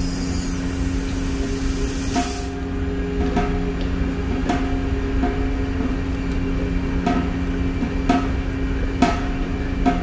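R404A refrigerant hissing out of a loosely fitted charging-hose nut on a refrigerant cylinder valve as the hose is bled; the hiss cuts off about two and a half seconds in as the nut is tightened. Then come several sharp clicks of pliers on the brass fitting, over a steady low hum.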